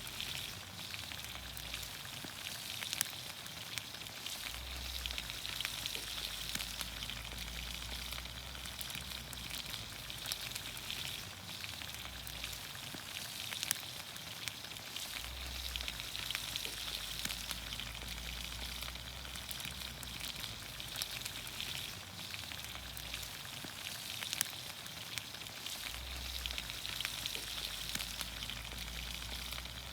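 Vegetables in olive oil sizzling over a campfire: a steady hiss with scattered sharp pops.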